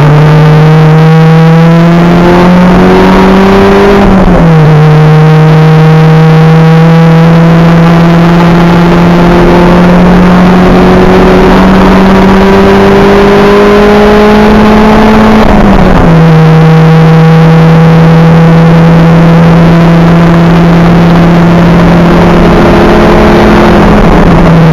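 Acura Integra race car's engine heard from inside the car at full throttle, its pitch climbing slowly through each gear. There are two sudden drops in pitch, at upshifts about 4 and 15 seconds in, and the pitch starts falling as the throttle comes off at the very end.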